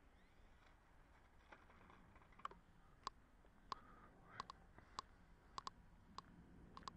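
Faint background with a dozen or so short, sharp clicks at irregular intervals, starting about a second and a half in.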